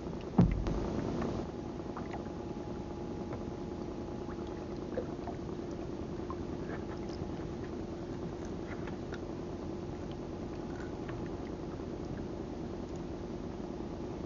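Small boat engine idling steadily, with one loud thump about half a second in.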